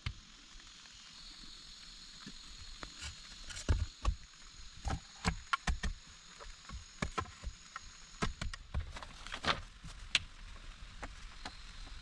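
Irregular light knocks and clicks, loudest about a third of the way in and again near three quarters, over a faint steady high-pitched tone.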